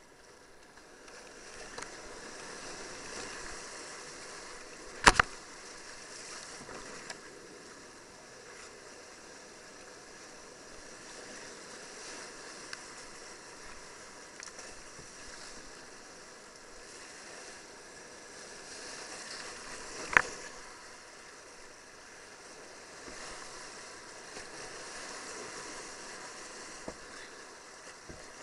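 Whitewater rapids rushing around a kayak, a steady noise that swells and eases as the boat moves through the waves. Two sharp knocks, far apart, stand out above the water.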